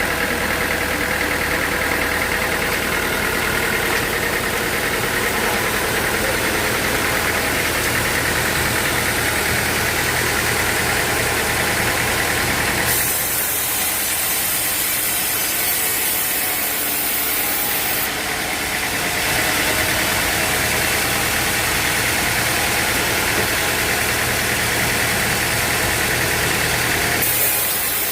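An engine running steadily with a low hum. For about five seconds partway through, the hum drops out and a higher hiss takes its place, then the hum returns.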